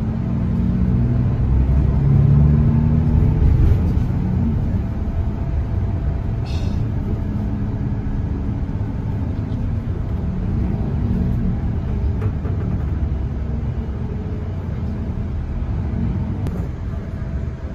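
Coach bus engine and road noise heard from inside the cabin while driving: a steady low rumble, with the engine tone strongest in the first few seconds. A short high squeak comes about six and a half seconds in.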